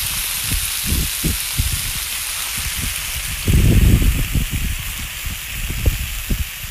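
Lamb pieces sizzling in rapeseed oil on a hot iron griddle plate over charcoal, a steady hiss. Irregular low thumps run underneath, with a louder low rumble about halfway through.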